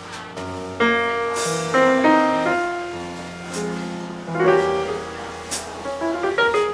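Live jazz trio playing: piano chords over sustained low notes, with soft cymbal strokes from a drum kit about once a second.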